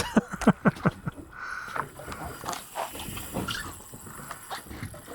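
A quick run of sharp knocks and clatters on a boat in the first second, then scattered lighter knocks and clicks.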